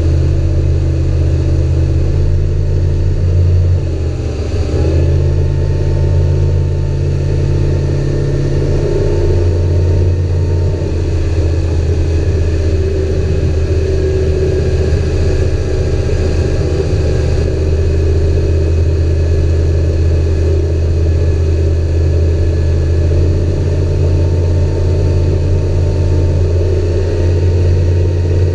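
Mariner FourStroke outboard motor running steadily at speed on a planing boat, with the rush of water from the wake. The level and pitch dip briefly about four seconds in, then hold steady.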